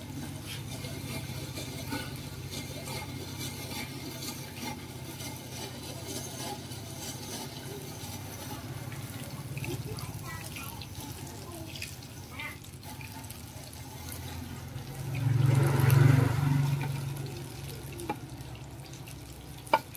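Hand-cranked stainless-steel spiral potato cutter turning, its blade scraping through a raw potato on a skewer with a steady wet hiss over a low hum. A louder low rumble swells and fades about three quarters of the way through, and a sharp click comes near the end.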